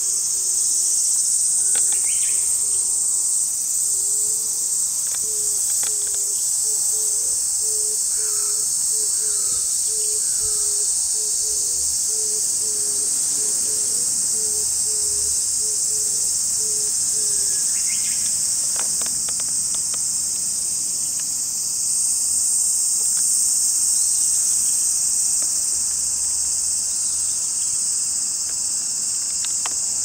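Cicadas singing in a continuous high-pitched drone, with a few brief bird calls. Through the first half a short low note repeats about twice a second.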